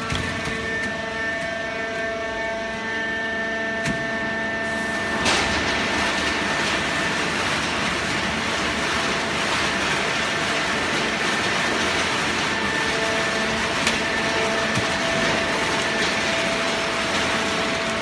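Hydraulic horizontal waste paper baler running: a steady machine drone with a pump whine. About five seconds in it turns into a louder, rushing hiss, with a couple of faint clicks.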